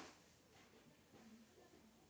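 Near silence: quiet room tone.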